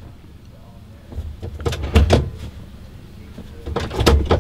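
Clunks and clicks of a pickup's steering-column gear selector being moved, in two groups about two seconds and four seconds in, over a low steady rumble inside the cab.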